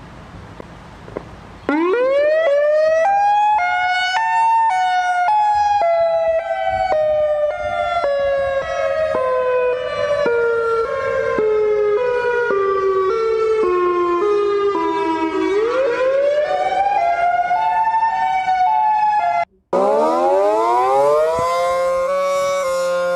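Outdoor tornado warning sirens sounding an alternate wail: a two-note chord winds up about two seconds in, slides slowly down in pitch, then climbs back up. It cuts off suddenly near the end and a second siren winds up from low.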